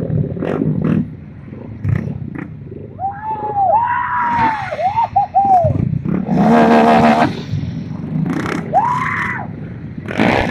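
Mini bike engines revving in quick blips, the pitch climbing and dropping several times, with short sharp pops. A loud wavering blare lasts about a second midway.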